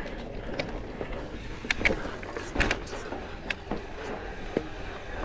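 Enduro mountain bike (Santa Cruz Megatower) ridden down a rocky trail: tyres rolling over stones, with several sharp knocks and rattles from the bike.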